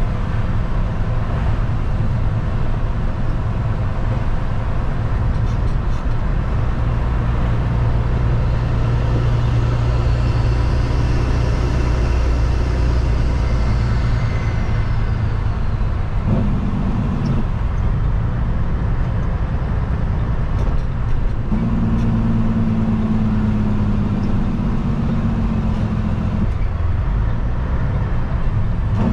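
Kenworth W900L's diesel engine running steadily while the truck drives on a wet road, heard inside the cab. The engine's note changes a few times in the second half.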